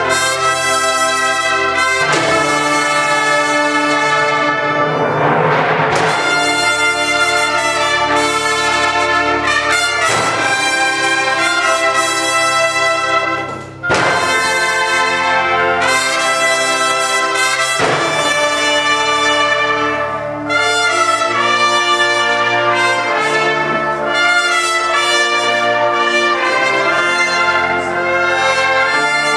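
Amateur concert wind band playing live, brass to the fore, in loud sustained full chords that change every couple of seconds, with two short breaks in the sound.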